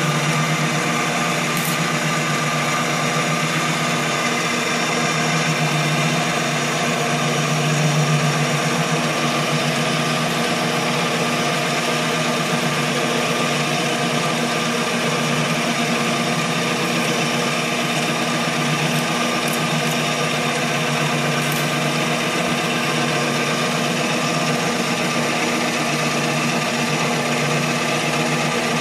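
7x16 mini lathe running steadily, its motor and gears giving a constant whine, while the cutting tool turns down an aluminum bar.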